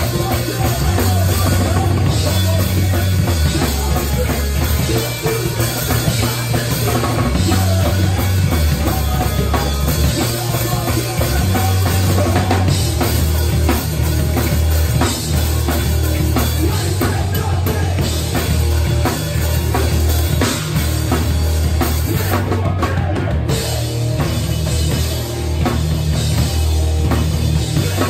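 Live punk rock band playing, heard close to the drum kit: drums and Zildjian cymbals loud over electric bass and guitar.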